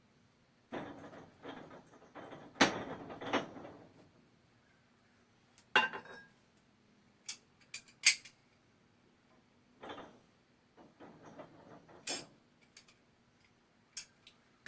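Metal clanking and scraping from handling lead-casting gear and ingots. A rough scraping stretch comes early, then sharp ringing clinks every couple of seconds.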